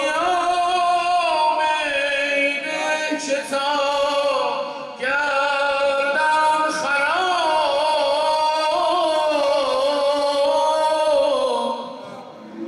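A zurkhaneh morshed's solo male voice chanting in two long, sliding, melismatic phrases, with a short break about five seconds in, setting the rhythm for the club-swinging exercise.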